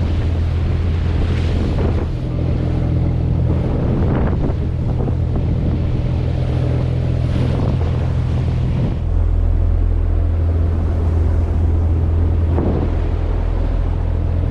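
Fishing boat's engine running steadily underway, with wind on the microphone rising in swells every few seconds. About nine seconds in, the engine note deepens and grows a little louder.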